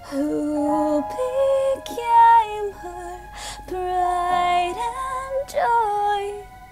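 A young woman singing long held notes that slide and run between pitches, over steady backing music.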